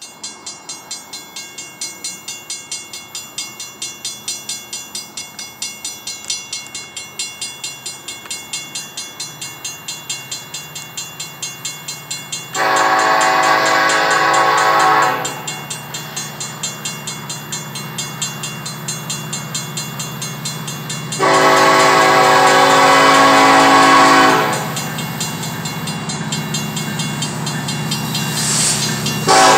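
Grade-crossing bell ringing steadily about three times a second as a freight train led by BNSF SD70ACe diesel locomotives approaches, the engines' low rumble growing louder. The lead locomotive's horn sounds two long blasts, the first near the middle and the second about two-thirds through, then starts a short blast at the very end: the long-long-short-long warning for a grade crossing.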